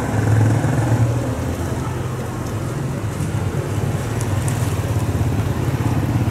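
Diesel-electric locomotive approaching at low speed, its engine giving a steady low rumble that takes on a faint rhythmic throb near the end.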